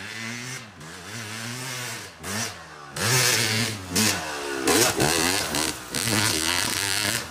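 Yamaha YZ250 dirt bike engine revving up and down as it rides the track. It gets much louder about three seconds in as the bike comes close, with quick rises and falls in pitch as the throttle is worked.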